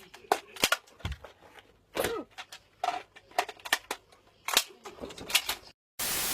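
Airsoft guns firing single shots at an irregular pace, sharp snaps a fraction of a second to about a second apart.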